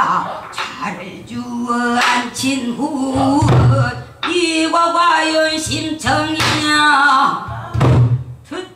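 A woman singing pansori in the Boseong style, full-voiced and rough-edged, with long held notes that bend and slide in pitch. A few low drum strokes fall between phrases, about every four seconds.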